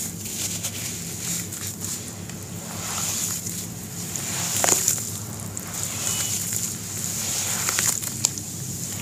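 Dry sand-cement lumps crumbling and crunching as hands crush them into a basin of water, with many small crackles over a fine steady hiss and water sloshing; one louder crunch a little after halfway. Near the end the hands squeeze and squish the wet cement paste in the water.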